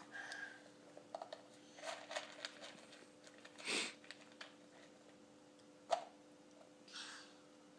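Light plastic clicks and rustles of a toddler's spill-proof snack cup being handled, small fingers working through the soft flap lid after dry cereal pieces, with a louder rustle about halfway and a sharp click near the end.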